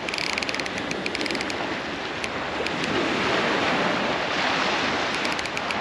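Surf washing on the beach with wind on the microphone, steady throughout. Runs of fast, faint ticking come near the start and again near the end.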